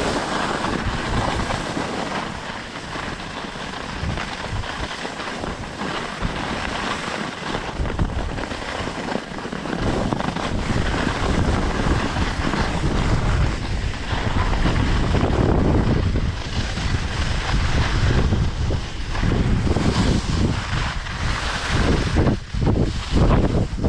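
Strong wind buffeting the microphone: a rushing noise that grows heavier and deeper about ten seconds in, with a few brief lulls near the end.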